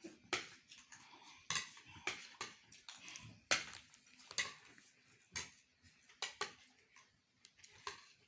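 Cutlery clinking and scraping against plates in quick, irregular clicks as several people eat fast. The loudest clink comes about three and a half seconds in.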